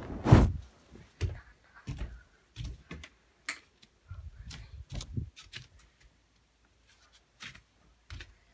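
Handling noise of a phone held close: irregular taps, knocks and rubbing on the body near the microphone, the loudest just after the start.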